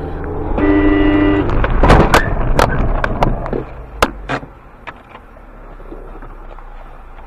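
A car horn blares for about a second, heard from inside the car, then a loud rumbling burst with several sharp knocks follows around two seconds in before settling to steady road rumble.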